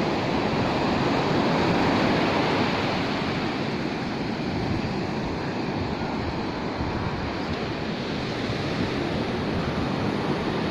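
Ocean surf breaking and washing up a sandy beach, a steady rush that swells slightly about two seconds in and then eases.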